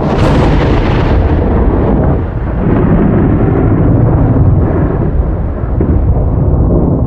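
Thunderclap: a sudden sharp crack, followed by a long, low rolling rumble.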